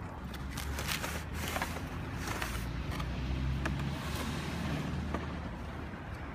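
Cardboard packaging and plastic rustling and knocking in scattered short clicks as a plastic toy seeder is lifted out of its box and handled, over a steady low rumble.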